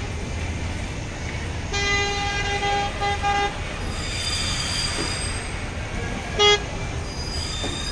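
Electronic horn of a battery-powered ride-on toy car being honked: one long beep of nearly two seconds with a short break near its end, then one short beep about six and a half seconds in. A steady low hum runs underneath.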